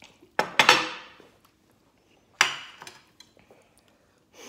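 Two sharp clunks, about a second and a half apart, of a drinking glass and tableware being set down on a glass tabletop, each ringing briefly before dying away.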